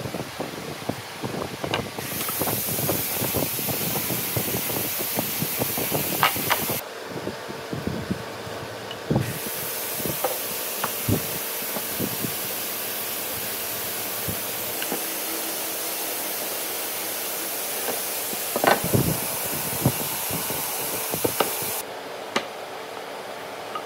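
Light knocks and taps of marking tools and pine boards handled on a wooden workbench, a few sharper knocks about 19 seconds in. Under them runs a steady hiss that starts and stops abruptly twice.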